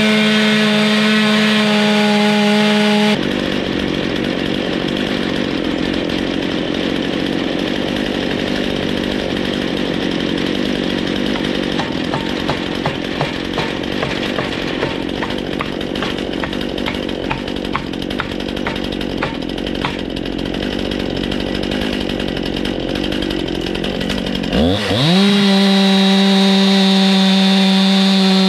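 Chainsaw on an Alaskan chainsaw mill running at full throttle, ripping a lengthwise cut through an ash log. About three seconds in it drops abruptly to a low, rough idle, with a run of light taps midway. Near the end it revs back up to a steady full cutting speed.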